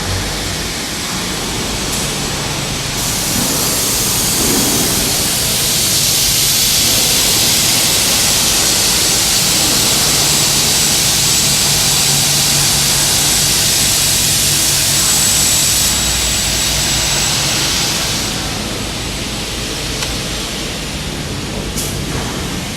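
Double-head aluminium cutting saw running with a steady motor hum, growing louder about three seconds in and easing back off a little after fifteen seconds.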